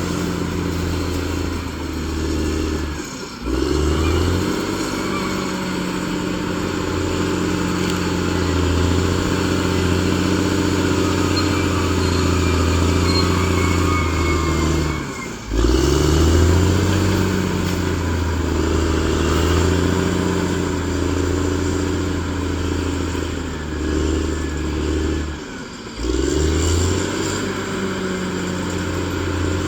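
Bulldozer's diesel engine running steadily under load, with a deep pitched drone. The sound dips briefly three times and picks back up, its pitch climbing again after each dip.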